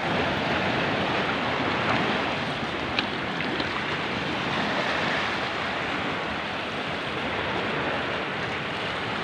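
Steady rush of sea water washing against shoreline rocks.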